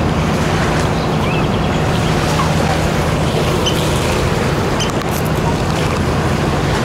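Outboard motor running at a steady speed, a low hum under a constant hiss of wind and water.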